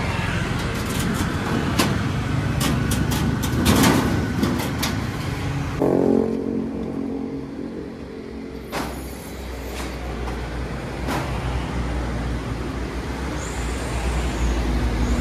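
Sharp metallic knocks and clatter from steel wardrobe panels being handled and fitted together, thickest in the first five seconds, over steady road-traffic noise with vehicles passing; a low rumble swells near the end as a vehicle goes by.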